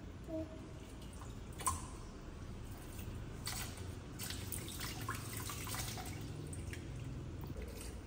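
Tap water running into a filled kitchen sink while small hands slosh and splash in it, with splashes heaviest in the middle and a single sharp knock about two seconds in.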